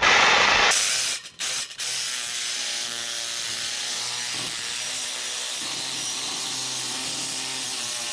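Power saw with a carbide blade cutting through thick wrought-iron fence steel. A loud rasping burst at the start, two brief stops about a second in, then steady cutting with an even motor whine.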